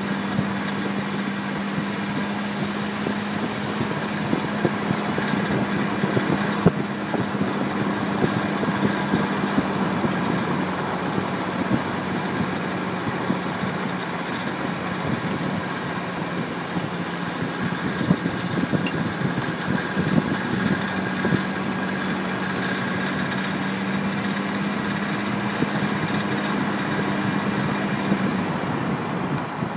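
BMW E46 320i's M54B22 straight-six driving under load, a steady engine tone over tyre and road noise, with the bright rattle from the front right that comes on under acceleration or uphill once the engine is fully warm. The owner has ruled out a wheel bearing and finds the rattle too bright to be the oil pump. The steady tone drops away near the end.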